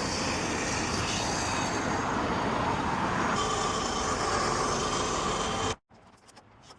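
Steady vehicle noise, running evenly and then cutting off suddenly near the end.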